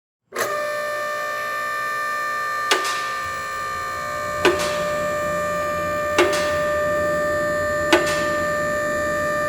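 Loud machinery running with a steady whine of several held tones over a noisy hum, with a sharp clunk repeating about every 1.7 seconds. It starts abruptly just after the beginning.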